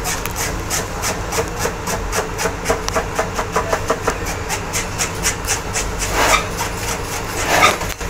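Hand fish scaler scraped rapidly along the skin of a whole salmon, stripping the scales: short rasping strokes about four to five a second, over a steady low hum.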